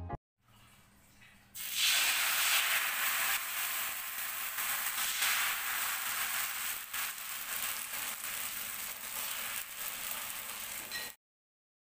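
White batter sizzling in a hot oiled pan. About a second and a half in, a sudden loud hiss starts and stays steady, then cuts off abruptly near the end.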